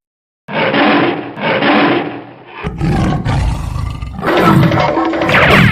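Recorded tiger roars played as a fake tiger sound: two roars start about half a second in, then more roars follow that sound fuller and richer from about the middle on.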